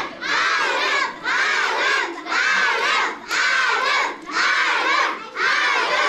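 A crowd of young schoolchildren chanting and shouting in unison, one rhythmic shout about every second, cheering on the cube solvers.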